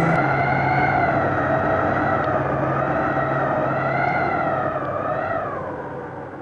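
The song's closing held chord, steady with a slight waver, fading out over the last second or so.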